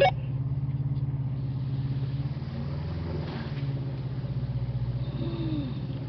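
Vehicle engine held under steady heavy throttle as the driver tries to drive forward out of a mud hole. It eases off slightly near the end.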